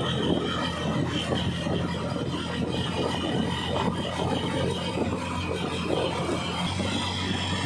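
Motorcycle tricycle riding along a paved road: its small engine running steadily, with tyre and wind noise.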